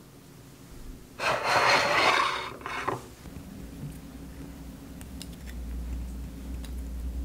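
A harsh rasping scrape starting about a second in and lasting about a second and a half, with a short second scrape right after. Then a few light clicks of wooden chopsticks against a ceramic plate.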